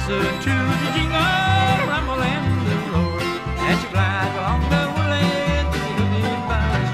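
Bluegrass band playing an instrumental break, with banjo and guitar over a steady bass. A melody line slides and wavers between notes.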